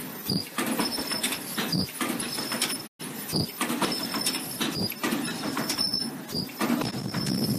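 Ultrasonic handle-loop welding machine for non-woven bags running in steady cycles, about one every second and a half: each cycle brings mechanical clacks and a high steady whine that breaks off briefly before the next.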